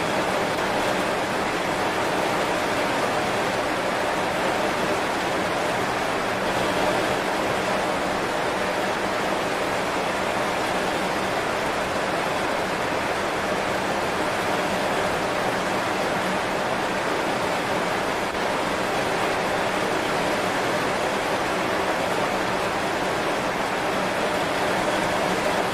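Heavy rain falling steadily on banana leaves: an even, unbroken hiss with no single drops standing out.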